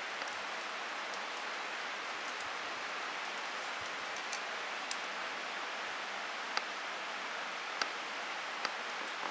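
Steady, even hiss of outdoor background noise, with a few faint sharp clicks scattered through the second half.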